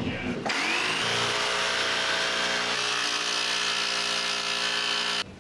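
Milwaukee M18 Fuel cordless jigsaw starting up and cutting a sheet panel along a guide rail: the motor spins up to a steady whine and cuts off abruptly near the end. A short knock comes right at the start.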